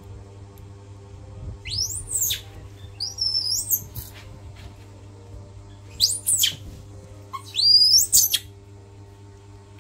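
Four loud, high-pitched, bird-like chirping calls, each a quick sweep up and down, coming in two pairs about four seconds apart, over a steady low hum.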